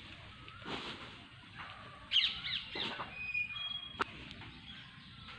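Birds calling: a quick run of sharp chirps about two seconds in, then two short clear whistled notes, with a single sharp click about four seconds in.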